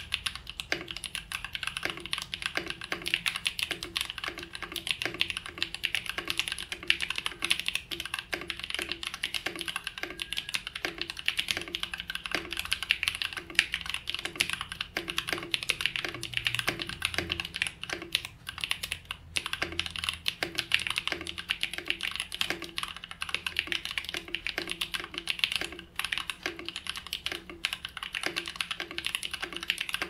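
Fast, continuous typing on a Fantech Maxfit61 Alucase 60% mechanical keyboard with lubed Tecsee Purple Panda tactile switches: a dense, steady stream of clacky keystrokes.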